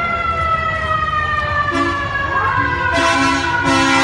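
Fire truck siren slowly winding down in pitch, with several short blasts of the truck's horn about halfway through and near the end, and a wailing siren rising and falling over it.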